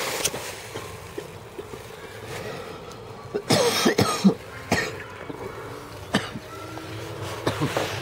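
A man coughing and clearing his throat: a few short coughs from about three and a half seconds in, after a quieter stretch.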